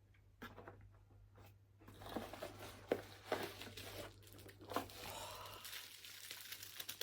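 Plastic packaging and bubble wrap crinkling and rustling as a camera is unpacked from its box. It starts about two seconds in, after a few faint clicks, with many sharp crackles.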